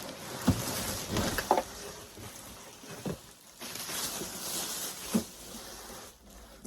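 Unboxing handling noise: packaging rustling and scraping, with a few light knocks.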